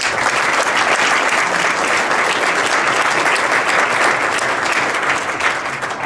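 Audience applauding at the end of a talk: sustained clapping that dies down near the end.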